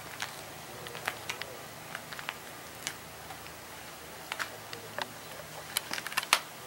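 Footsteps on a dusty barn floor: scattered light clicks and ticks, with a quick cluster near the end holding the loudest of them.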